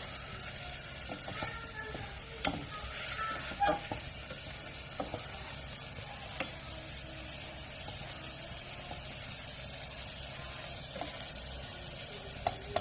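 Food sizzling steadily in a hot pan while it is stirred, with scattered clinks and scrapes of a utensil against the pan.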